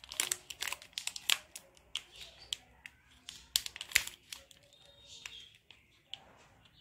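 Crinkly plastic wrapper of a Cadbury 5 Star 3D chocolate bar crackling as hands handle and grip it. The crackles come thick in the first second or so and again about four seconds in, then thin out.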